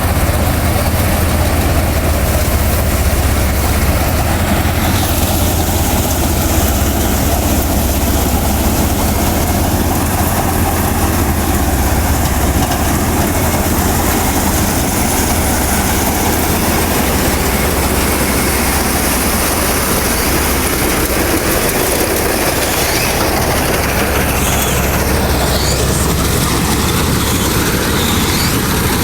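Vikas 325 tractor-mounted mini combine harvester running steadily while harvesting paddy: a constant low engine drone under an even mechanical rush from the cutting and threshing gear.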